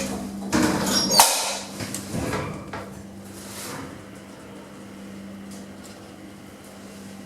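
Passenger lift doors sliding shut and closing with a sharp clunk about a second in, followed by a steady low hum from the lift car.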